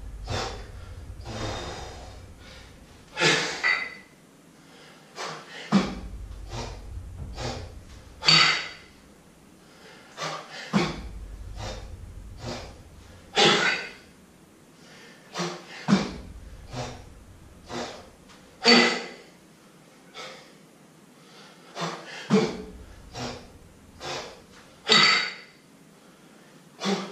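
Heavy breathing from a man jerking a pair of kettlebells: a sharp, forceful exhale with each jerk, about every five seconds, and quicker short breaths in between.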